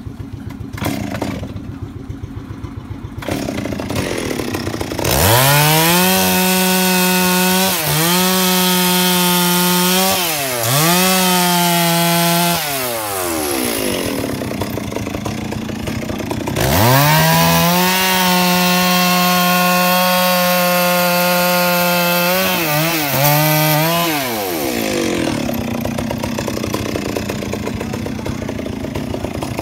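STIHL two-stroke chainsaw idling, then opened to full throttle twice for about seven seconds at a time as it cuts into teak logs. Each run holds a steady high note, dips briefly once, and winds back down to idle.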